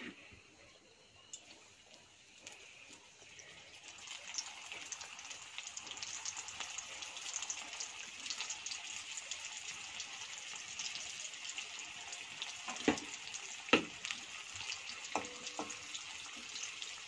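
Fish cutlets frying in hot oil in a steel kadai: a crackling sizzle that builds over the first few seconds and then holds steady. A few sharp knocks sound about two-thirds of the way through.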